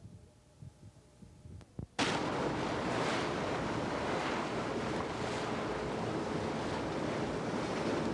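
Faint low rumbling, then about two seconds in a sudden switch to loud, steady rushing noise of a boat under way at sea: wind buffeting the microphone over water and hull noise.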